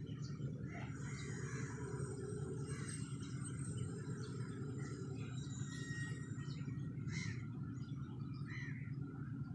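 Diesel-electric locomotive idling at a standstill with a steady low drone, while birds call and chirp in short bursts over it.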